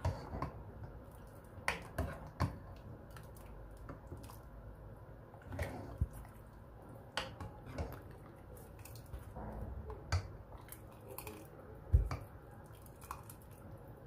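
Knife cutting coriander and parsley on a cutting board: scattered sharp taps at an uneven pace, with one louder knock about twelve seconds in.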